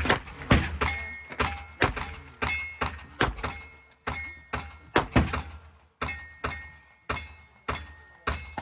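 A steady string of gunshots fired at about two a second, each crack followed by a short ringing decay.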